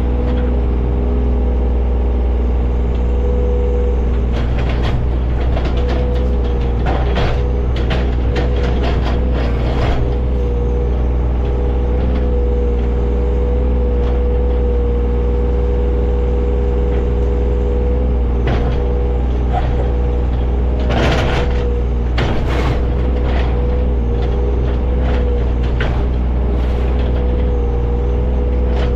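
John Deere 35G mini excavator's diesel engine running steadily under work, with scattered cracks and clatter as brush and debris are moved, louder in bunches about a third of the way in and again past the two-thirds mark.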